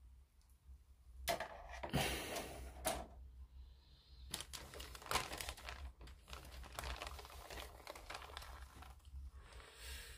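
Thin clear plastic bag crinkling and rustling as a grey plastic model-kit sprue is handled and drawn out of it: a burst about a second and a half in, then a longer stretch of crinkling from about four to nine seconds in.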